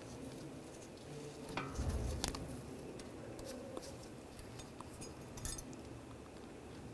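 Faint, light metallic clicks and clinks of brake pads and their spring clips being handled and held in place, with a low bump about two seconds in.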